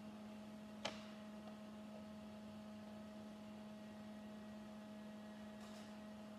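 Faint steady electrical hum, with one small sharp click about a second in as Lego minifigure parts are pressed together by hand.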